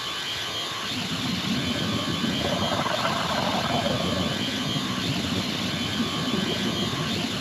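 Dense, droning noise texture from an improvised experimental electronic music set, steady throughout, with a brighter hiss swelling in its middle for a second or so.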